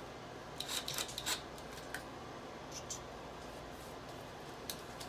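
A few light clicks and taps of hands handling wood and screws, with a quick cluster of them about a second in and single ones later.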